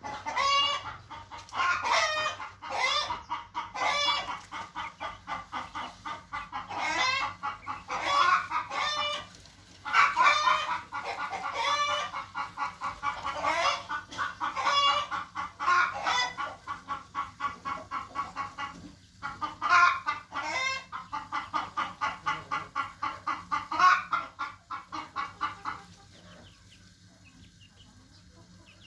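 Young chickens calling over and over: runs of quick clucks broken every second or two by louder, wavering calls. The calling stops near the end.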